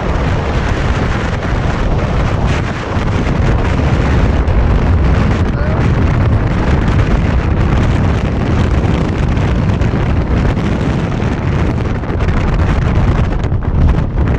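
Strong wind buffeting the microphone: a loud, heavy rumble with a hissing edge, rising and falling in gusts throughout.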